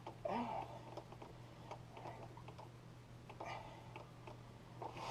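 Scattered light clicks and ticks of hand tools working on hydraulic hose fittings, with a short grunt of effort near the start. A steady low hum runs underneath.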